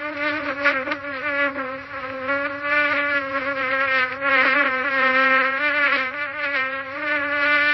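Fly buzzing in flight: one continuous droning buzz that wobbles a little in pitch and swells and fades in loudness as the fly moves about.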